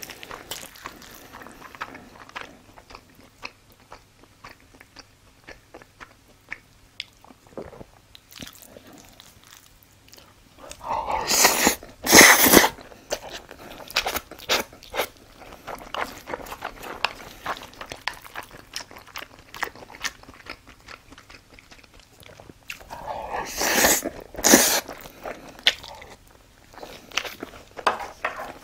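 Close-miked eating sounds of a person chewing mouthfuls of raw-beef bibimbap from a spoon: many small wet clicks, with two louder, longer bursts of eating noise, one near the middle and one near the end.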